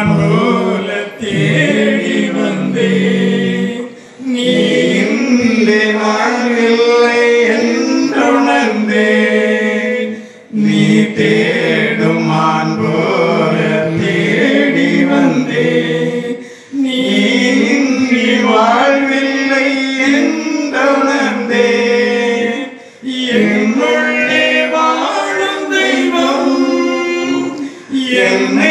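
A group of voices singing a devotional hymn, in sung phrases of about six seconds with short breaks between them.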